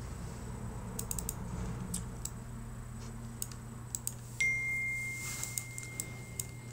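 Scattered, irregular clicks of a computer keyboard and mouse over a steady low hum. A thin, steady high tone starts about four and a half seconds in.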